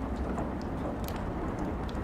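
Steady rain with a low rumble, and a few sharp crackles from burning firewood, the clearest about halfway through.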